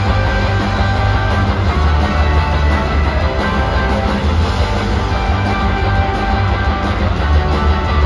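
Live rock band playing loud with electric guitars, bass guitar and drums, with heavy bass, heard from the audience.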